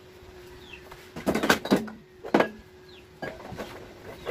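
Cans and packaged groceries clattering as they are handled and set on a metal shelf: a quick run of knocks about a second in, one sharp knock a moment later, then a few lighter clicks.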